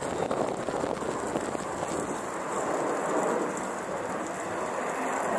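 Jet engine roar from a formation of four military jets passing overhead: a steady, even rumble that neither rises nor falls.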